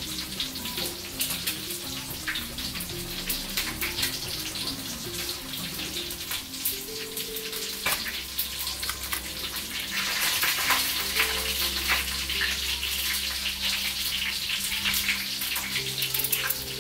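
Steady crackling water noise, thick with small clicks and splashes, grows louder about two thirds of the way through, over quiet background music.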